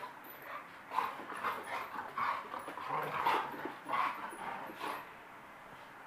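Two dogs play-fighting, giving a quick series of short whiny vocal noises from about a second in until about five seconds in, then quieting.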